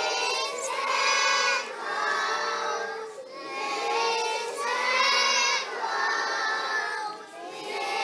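A large group of young children singing together in unison, in held phrases of about a second each with short breaks between them.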